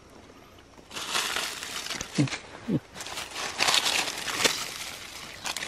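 Dry fallen leaves and twigs rustling and crackling as a hand rummages and pushes through leaf litter among rocks. It starts about a second in and goes on in uneven crackly bursts until near the end.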